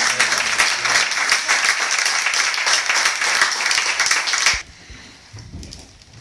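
A roomful of people applauding. The dense clapping cuts off suddenly about four and a half seconds in.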